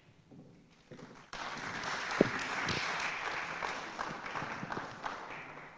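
Audience applauding: the clapping starts about a second in and slowly dies away near the end. A single sharp knock stands out about two seconds in.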